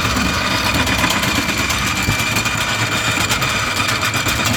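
Electric anchor windlass running steadily to pay out the anchor, its motor giving a constant high whine over a rumble.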